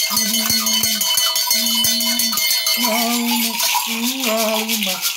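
Gourd rattles hung with clusters of small metal bells, shaken hard and continuously in a fast rattle and jingle. Under them a man's voice chants wordlessly in long held notes.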